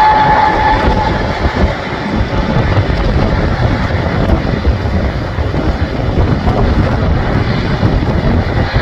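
Airbus A320neo's Pratt & Whitney geared turbofan engines at takeoff thrust during the takeoff roll: a loud, steady rumble, with a high whining tone that fades out about a second in.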